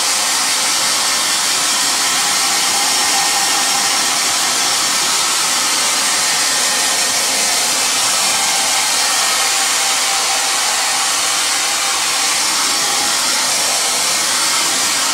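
Handheld hair dryer blowing steadily: a loud, even rush of air with a faint motor whine, cutting off right at the end. It is drying a fresh coat of leather dye with heat.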